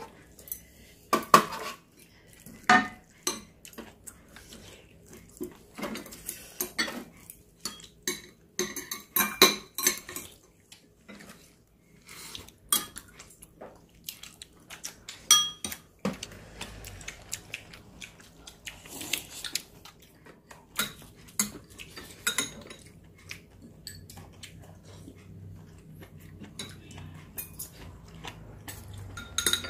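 Metal spoons, chopsticks and a ladle clinking and scraping against ceramic bowls and a stone-coated pan during a meal: irregular sharp clinks, thicker in the first half and sparser later.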